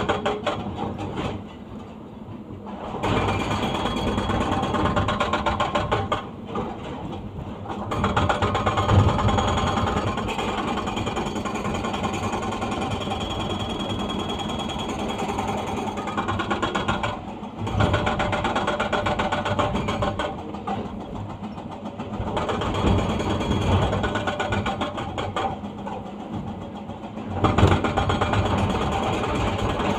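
Excavator-mounted hydraulic breaker hammering in rapid blows, in bouts with short pauses between them, over the excavator's engine.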